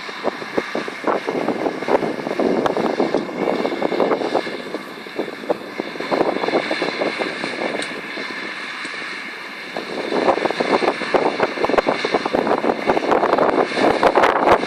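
Samwon SRB100 round baler running: steady mechanical whine over dense, rapid rattling from the working machinery. It eases off for a couple of seconds around the middle, then picks up again.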